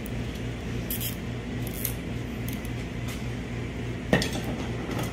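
Light clicks and a sharper clank of steel transmission clutch plates being handled and set down, the loudest about four seconds in, over a steady low hum.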